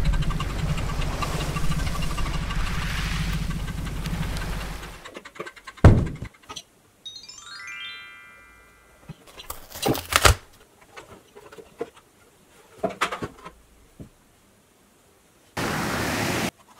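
Background music with a pulsing low beat for about five seconds, then stops. After that come scattered clicks and knocks of toys and packaging being handled, a short rising sweep a couple of seconds later, and a burst of hiss about a second long near the end.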